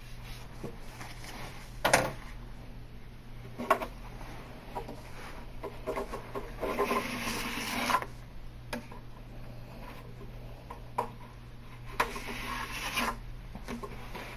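Pocket knife trimming plastic edge band at a board's corner: a few sharp clicks and taps, then two longer scraping strokes, one about seven seconds in and one about twelve seconds in. A low steady hum runs underneath.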